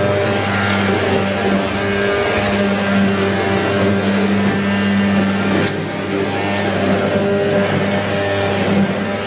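Bissell PowerForce Helix Turbo upright vacuum cleaner running steadily: a constant motor hum with a thin high whine over the rush of air. A brief click sounds a little past halfway.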